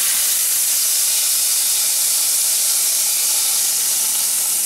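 Hot oil sizzling steadily in a frying skillet, a constant high hiss.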